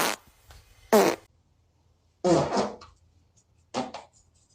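A person farting: a few separate short blasts with quiet between, a sharp loud one about a second in and a longer one just after two seconds, then smaller ones near the end.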